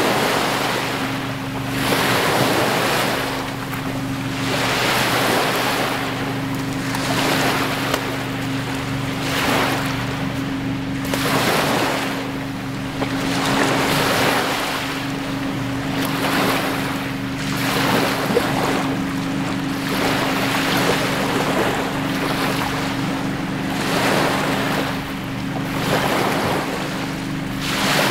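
Small lake waves lapping and breaking on a sandy, pebbly shore, surging in about every two seconds, with wind buffeting the microphone and a steady low hum underneath.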